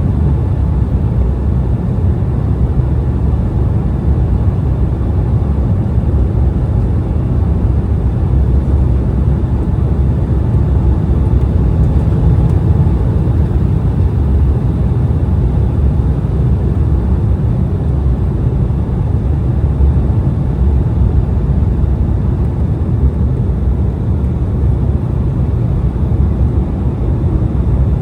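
Cabin noise of an Embraer E175 airliner heard from inside: a steady, loud low rumble of the jet engines and airflow, unchanging throughout.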